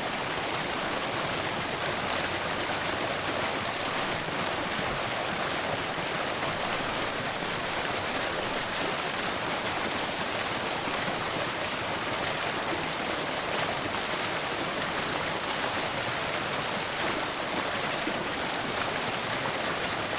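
Fountain water splashing down steadily, an even hiss of falling water with no breaks.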